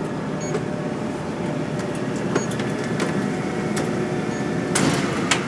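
Direct-vent furnace running with a steady hum, with a few light clicks of handling and a short rustling scrape near the end.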